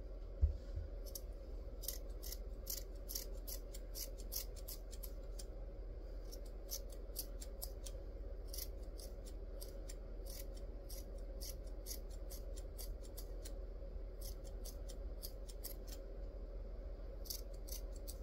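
Scissors snipping through a yarn pom-pom as it is trimmed into shape: quick crisp snips in runs of several, broken by short pauses, over a faint steady hum. A low thump about half a second in.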